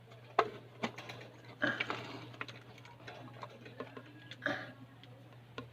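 Irregular sharp clicks and taps, a handful scattered across a few seconds with a short cluster near the middle, over a faint steady low hum.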